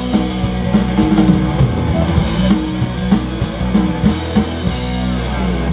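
Punk rock band playing live on electric guitar, bass guitar and drum kit: an instrumental passage with no vocals after the last chorus, the song ending near the end.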